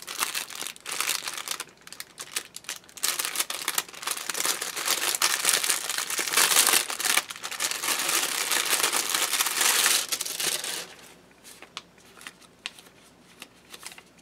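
Clear plastic bag crinkling as hands handle and open it, a dense crackling for about eleven seconds, then only a few faint rustles near the end.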